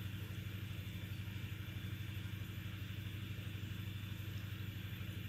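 A motor running steadily: a low, even hum with a fast regular pulse.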